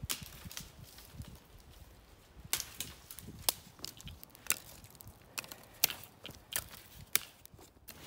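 Stick fire in a ground-oven pit crackling, with sharp, irregular pops and snaps about every half second over a low hiss.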